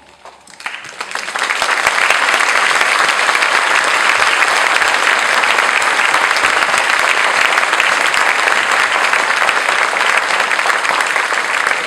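Crowd applauding, swelling up over the first second or two and then holding steady as dense clapping.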